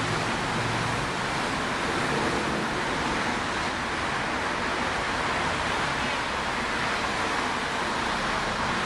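Steady roar of street traffic, cars running along a city avenue, with no distinct events standing out.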